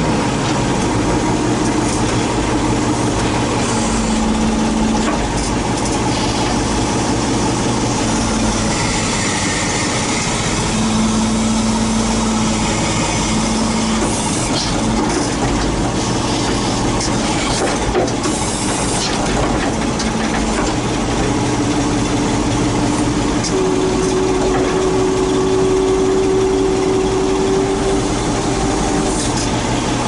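Small tractor's engine running close up with a steady rattle, its pitch shifting now and then as the front-end loader moves a log hanging on a chain.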